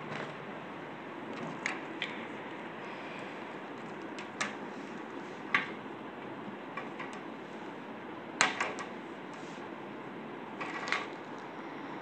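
Scattered light clicks and knocks of a plastic doll and toy accessories being handled and set down on a glass-topped table, over a steady faint hiss. The sharpest knock comes about halfway through, and a quick cluster of clicks comes a few seconds later.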